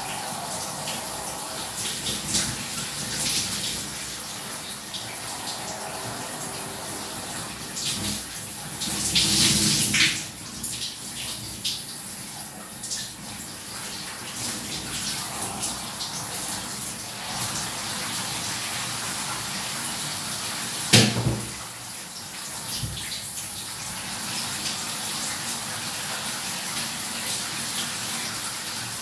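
Shower running, its spray falling and splattering steadily, with a louder surge of splashing about nine seconds in and a single sharp knock about twenty-one seconds in.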